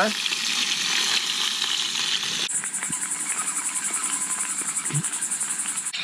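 Potatoes frying in bacon fat in a pan on a camping gas stove, a steady sizzle. About two and a half seconds in it cuts off suddenly and gives way to insects chirping in a high, fast, steady pulse.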